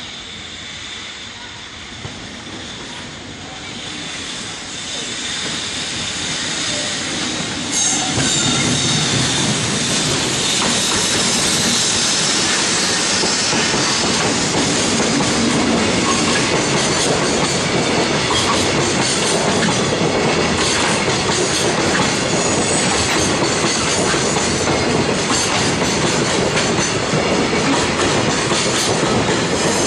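A long JR Freight container train hauled by an EF65 electric locomotive approaching and passing close by. The noise builds over the first few seconds and rises sharply about eight seconds in. It then settles into a steady rumble of the container flatcars' wheels, with rapid clicks from the rail joints.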